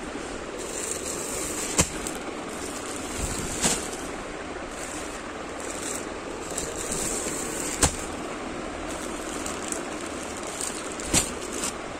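Clear plastic polybags around packed t-shirts crinkling in a few short, sharp crackles as the packets are handled, over a steady background hiss.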